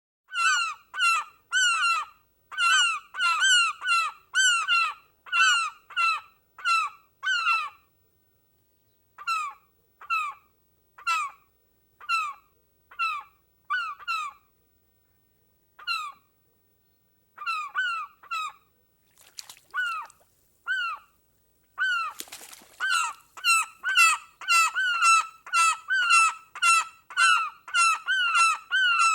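Geese honking in a long run of short, repeated calls. The calls thin out with gaps through the middle. A brief rushing noise comes about two-thirds of the way through, then the honks come thick and overlapping.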